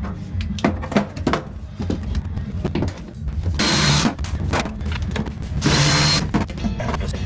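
Power tool run in two short bursts a couple of seconds apart, backing out bolts, with sharp knocks and clinks of metal before them.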